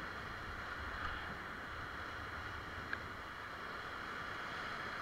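Steady rush of a whitewater river rapid around a paddle raft running it, with one short click about three seconds in.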